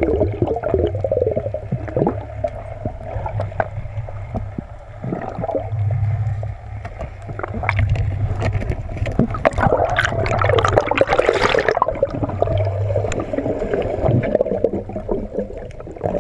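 Underwater sound picked up by a camera in a waterproof housing: muffled gurgling water with scattered sharp clicks and a steady low hum. About ten seconds in comes a louder hissing rush of bubbles lasting a second or so.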